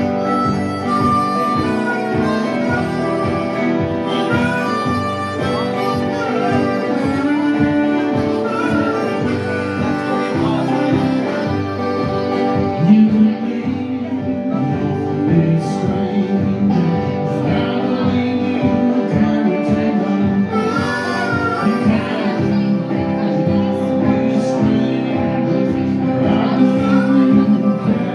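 Live blues band playing an instrumental break: a wailing harmonica solo over guitar and a steady beat.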